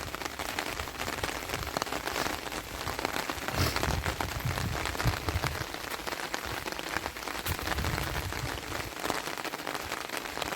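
Steady rain falling, a dense patter of drops hitting the surfaces around.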